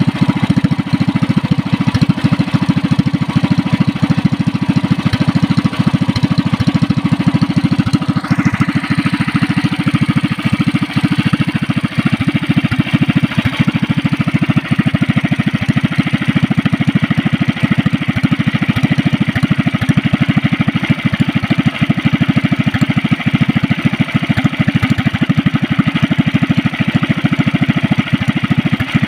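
A Yamamoto 420 cc single-cylinder boat engine running steadily through a short, straight open exhaust pipe. The engine has just been rebored and fitted with a 0.50 oversize piston.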